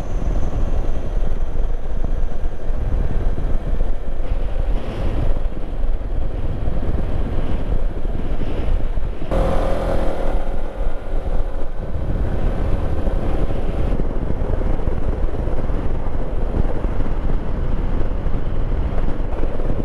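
Steady wind rumble on the microphone and running noise from a moving road vehicle. About nine seconds in, an engine note swells for a couple of seconds.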